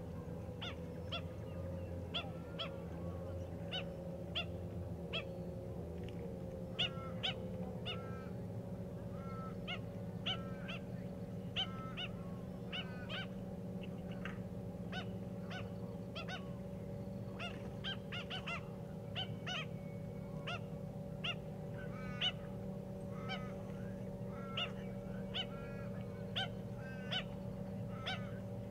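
Black-winged Stilts calling: short, honking notes repeated about once or twice a second, sometimes in quick runs, over a steady low hum.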